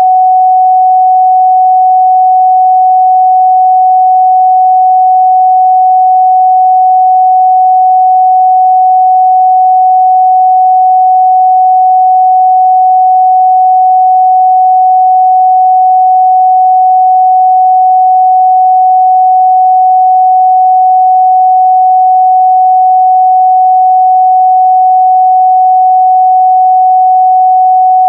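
A steady, loud 744 Hz sine-wave test tone, one pure pitch held without change.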